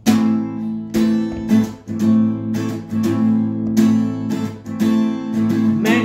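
Acoustic guitar strummed in chords, a strum about every half second, with the singing voice coming back in at the very end.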